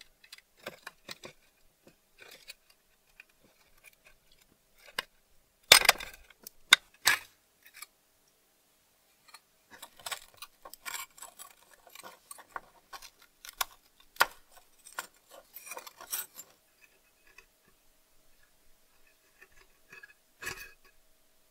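Small metal clicks, taps and scrapes as a screwdriver and a pick work on the rusty sheet-metal parts of an antique Louxor Supra bicycle lantern. A few louder clinks come around six to seven seconds in, and another near the end.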